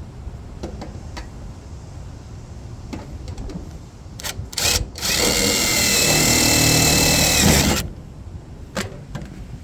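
A handheld power tool, drill-like, runs steadily with a whine for about three seconds, starting just past the middle, after a couple of sharp clicks.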